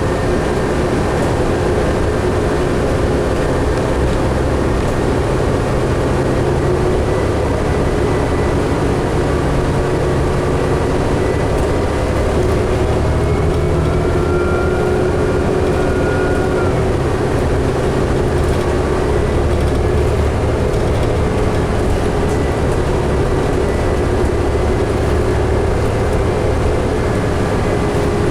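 2011 New Flyer D60LFR articulated diesel bus heard from inside the cabin, engine and drivetrain running steadily under way, with a low rumble and a steady whine. A higher whine rises slightly for a few seconds near the middle.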